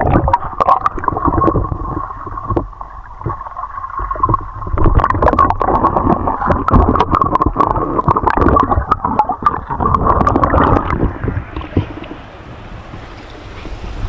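Water gurgling and splashing right at the microphone, muffled, with many sharp clicks; at about eleven seconds it gives way to the quieter steady rush of a stream.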